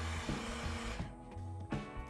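Hot-air heat gun blowing on the phone's screen to soften its adhesive, a steady rushing hiss that stops about a second in. Background music with a steady beat plays underneath.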